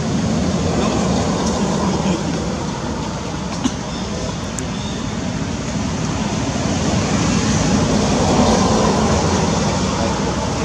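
Steady outdoor background noise: a continuous low rumble and hiss with no distinct calls or events, swelling slightly late on.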